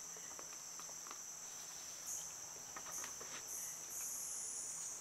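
Steady, high-pitched buzzing chorus of insects. Further buzzing calls join about two seconds in and twice more, and the last one slowly falls in pitch near the end.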